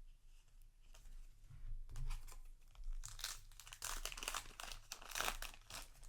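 Foil trading-card booster pack wrapper crinkling and tearing as it is handled and ripped open, the crackling loudest in the second half.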